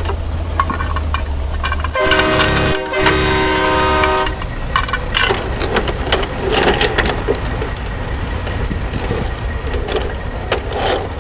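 A horn sounds in two steady blasts about two seconds in, a short one and then a longer one of about a second and a half, over a low rumble. Short plastic knocks and clatter from toy bins and blocks being handled follow.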